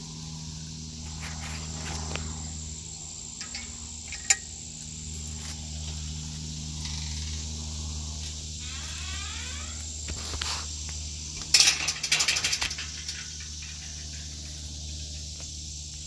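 Cicadas buzzing steadily in a high, continuous drone over a steady low hum. A single sharp click sounds about four seconds in, and a rapid rattle of clicks comes about twelve seconds in.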